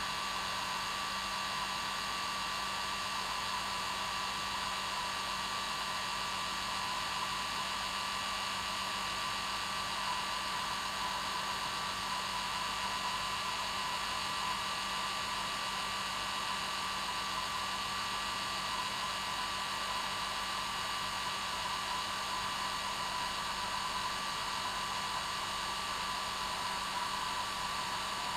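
Hair dryer running steadily: an even rush of blowing air with a constant whine and a low hum underneath, unchanging throughout.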